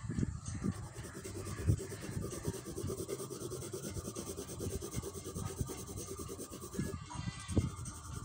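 Green colour pencil shading on paper: rapid, repeated back-and-forth strokes rubbing across the page.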